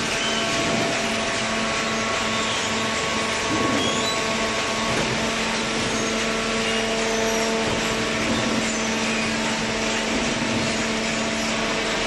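Fully automatic hydraulic waste-paper baler running: a steady mechanical drone with several held humming tones and no distinct strokes or knocks.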